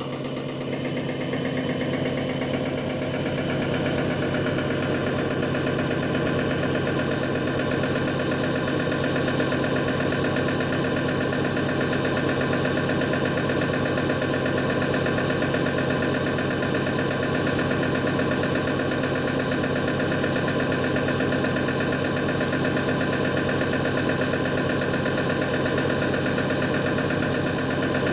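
EPS205 common rail injector test bench running a test step, its motor driving a CP1 high-pressure pump with the Bosch common rail injector firing. The sound rises over the first two seconds or so, then holds as a steady machine hum.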